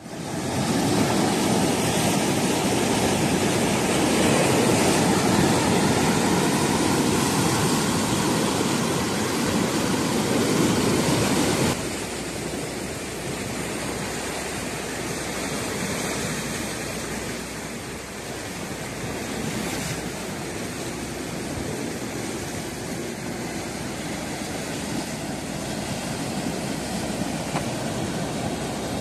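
Sea surf washing on a rocky shore, a steady rushing wash that drops abruptly quieter about twelve seconds in.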